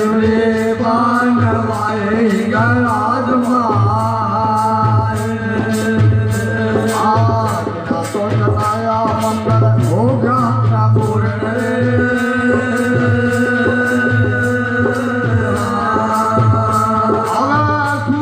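Devotional folk bhajan: singing with a held, wavering melody over a steady percussion beat of about two strokes a second.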